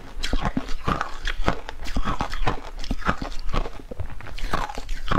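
Shaved ice dusted with matcha powder being chewed, a continuous close run of crisp crunches.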